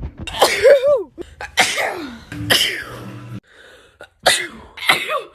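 A woman sneezing several times in a row, sharp voiced sneezes about a second apart.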